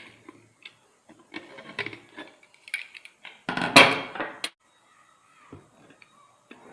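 Metal cooker lid and kitchen utensils clattering as the cooker is opened to check the batter. There are several short clatters, the loudest about three and a half seconds in, then quieter handling.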